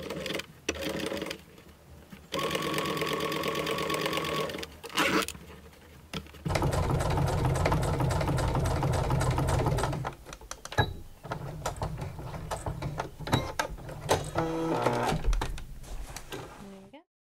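Electric sewing machine stitching along a zip with its zipper foot fitted: a short run of stitching, a pause, then a longer, louder run, followed by stop-start stitching with clicks.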